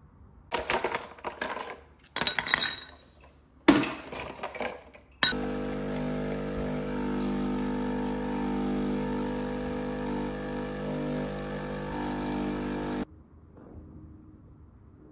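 Ice cubes clinking into a glass in three short bursts, then a Nespresso capsule machine's pump running with a steady hum for about eight seconds before cutting off abruptly.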